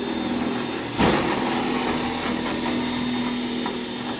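Cordless drill running steadily with a steady whine, boring a hole through a fiberglass hood to mount hood pins. A sudden louder bite about a second in.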